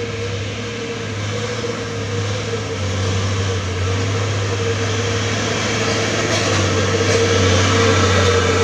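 Mitsubishi Fuso 6x4 dump truck's diesel engine labouring as the truck crawls through deep mud ruts, a steady drone that grows gradually louder as it approaches.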